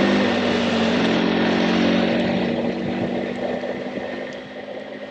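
Motorcycle engine running at a steady cruise under loud wind and tyre noise from the wet road, heard from a helmet camera. In the second half the engine note fades and the whole sound grows quieter.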